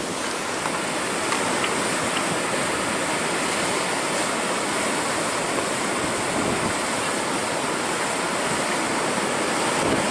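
Heavy ocean surf whipped up by Hurricane Dorian: a steady, unbroken rush of breaking waves.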